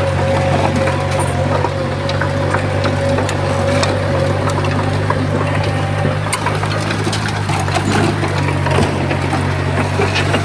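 Komatsu crawler bulldozer's diesel engine running under load, a steady low drone with a thin whine over it that stops about six seconds in, while scattered cracks and crunches come from the tracks and the soil being pushed.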